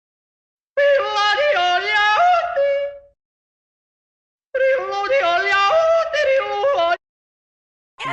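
A yodel, a cartoon sound effect, played twice: each phrase runs about two seconds and leaps back and forth in pitch, with dead silence between. A brief voice starts right at the end.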